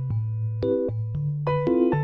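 Relaxing background music: sustained chords over a bass line, the notes changing about every half second.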